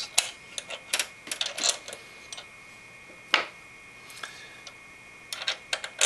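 Scattered small metal clicks and taps of CPU cooler mounting crossbars being fitted over the backplate's bolt ends on the motherboard. There is one sharper click about three seconds in and a quick run of clicks near the end.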